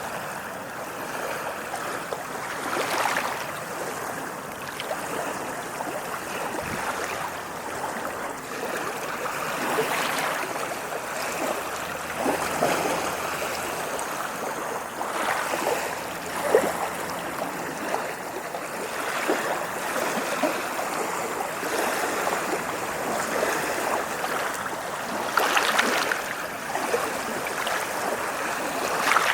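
Ocean waves washing on a shore: a continuous rush of water that swells and eases irregularly, with small sharp splashes.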